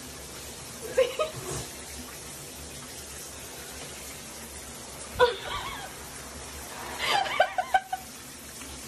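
Shower spray running steadily into a bathtub, with short bursts of a person's laughter about a second in, around five seconds in, and a quick run of laughs near seven seconds.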